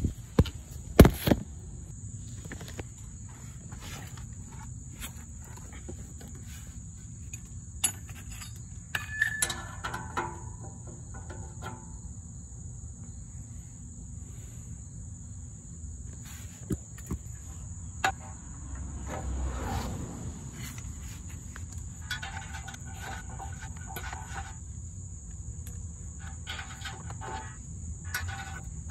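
A steady high insect drone with scattered sharp metal clinks and knocks from fitting exhaust U-clamps to the pipe, the loudest about a second in.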